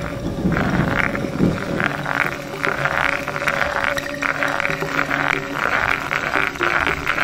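Abstract electronic soundtrack: several sustained low drone tones, joined about half a second in by an irregular, flickering band of noisy texture higher up.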